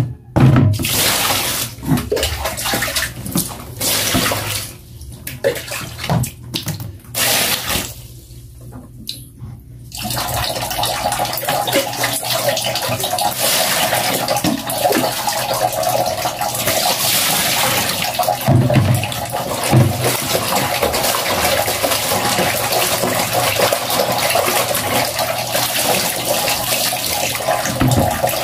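Water splashing and sloshing in a plastic washbasin of clothes in separate bursts for about ten seconds, then water pouring in a steady, unbroken stream into the basin for the rest, with two low knocks a little past the middle.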